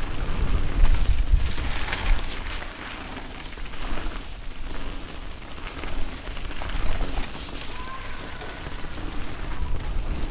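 Canyon Strive mountain bike riding down a leaf-covered dirt trail: knobby tyres crackling over dry leaves and dirt, with clicks and rattles from the bike. Wind buffets the handlebar camera's microphone as a low rumble, strongest in the first couple of seconds and again near the end.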